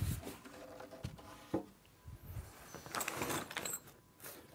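Flat-pack cabinet panels being handled and set down in a cardboard box: a few light knocks near the start and about a second and a half in, then a sliding scrape around three seconds in.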